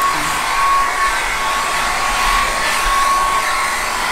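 Handheld hair dryer running steadily: a constant rush of air with a thin, steady whine.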